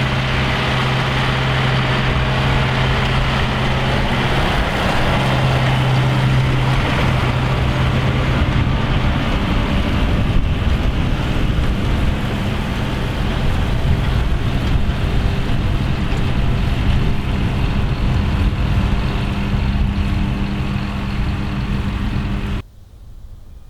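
Massey Ferguson tractor engine running steadily under load with a strong low hum, working a round baler in the field. The sound cuts off abruptly near the end.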